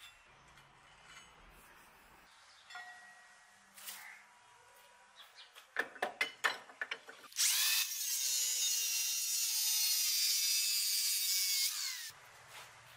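A few sharp metallic clicks as the steel ring is set in the clamp. Then a power cutting tool, most like an angle grinder with a cut-off disc, cuts through the ring for about four and a half seconds: a loud high whine with a hiss of cutting that starts abruptly and falls in pitch as the tool spins down near the end.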